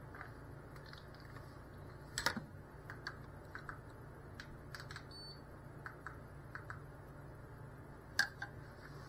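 Scattered light clicks and taps at an uneven pace, with two sharper knocks about two seconds in and near the end, over a steady low hum.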